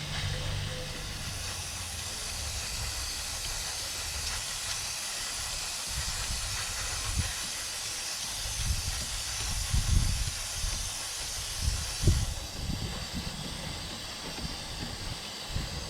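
Aerosol chain lube spraying in one long, steady hiss onto a new motorcycle chain, stopping about twelve seconds in. A few dull low knocks come near the end of the spray.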